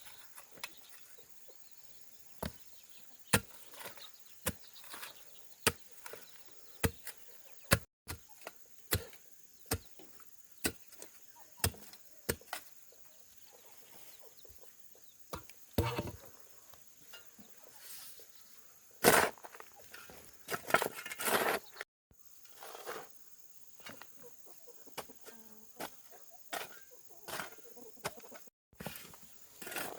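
Sharp chopping strikes on wood, about one a second and then more spaced out, with farm fowl clucking. A louder, longer burst of sound comes between about 15 and 22 seconds.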